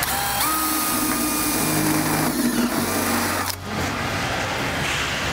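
Cordless drill with a step bit cutting a 5/8-inch hole through sheet-metal duct: a motor whine that rises as it spins up, over the high hiss of the bit grinding through the metal. It stops suddenly about three and a half seconds in as the hole breaks through.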